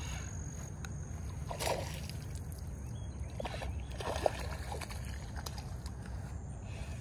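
Steady low wind rumble on the phone's microphone, with a few faint short sounds and one sharp click a little over four seconds in.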